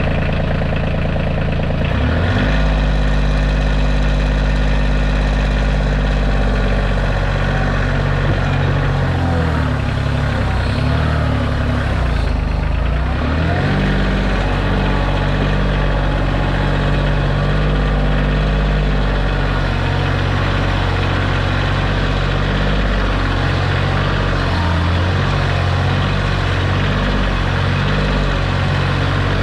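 Kioti tractor's diesel engine running steadily while working a backhoe. Its pitch dips and rises about two seconds in and again from about nine to fourteen seconds in, as the engine speed changes under load.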